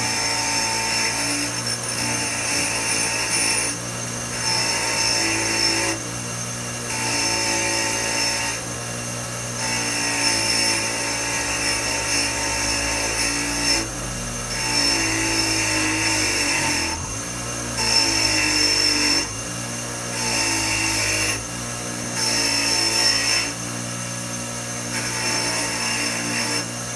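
Ryobi 6-inch bench grinder running with a wire wheel, which scrubs a flathead V8 thermostat housing clean of old gasket. There are about nine harsh scratchy passes of a second or two each as the part is pressed to the wheel, with the motor's steady hum in between.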